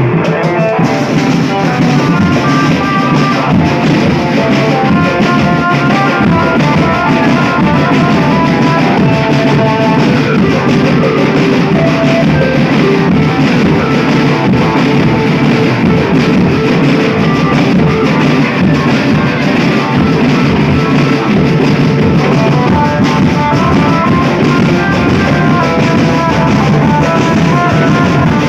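Rock-style music with a drum-kit beat and guitar, playing continuously at an even, loud level.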